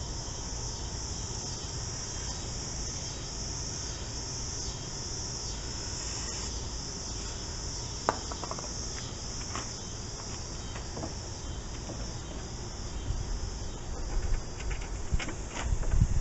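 Crickets chirping steadily in a continuous high-pitched chorus, with a few faint clicks and knocks from hand work, and low knocking near the end.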